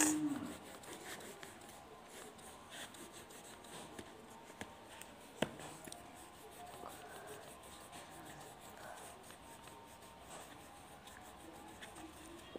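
Coloured pencil scratching on paper as it shades in strokes, with a single sharp tap about five seconds in. The tail of a low, drawn-out call fades out in the first half second.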